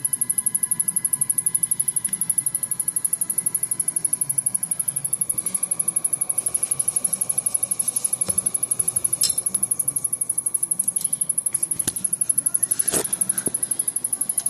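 A Samsung rear-projection CRT television giving off a rapid, even, high-pitched ticking, the sign of a fault that the owner takes for something shorting out inside the set while it fails to fire up. A few sharp clicks or knocks come near the middle and toward the end, the loudest about two-thirds of the way in.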